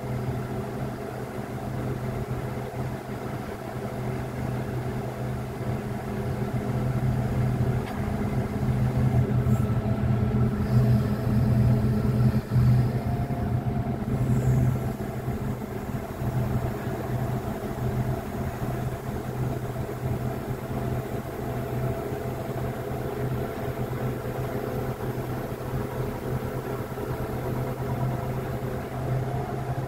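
Crane machinery running with a steady low hum, growing louder for several seconds near the middle before settling back.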